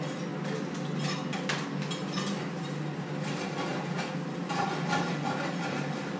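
Metal rod stirring molten metal in a foundry crucible: scattered scraping clicks against the crucible, over a steady low hum.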